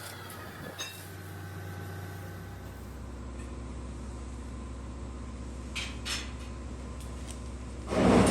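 Metalworking workshop noise: a steady low machine hum with a few light metal clinks, and a short loud burst of noise near the end.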